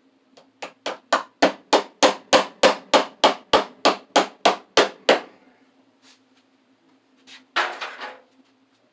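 Hammer driving a cable staple to fasten a ground wire: a run of about seventeen quick, even blows, roughly three a second, that stops about five seconds in. A short rustling clatter follows near the end.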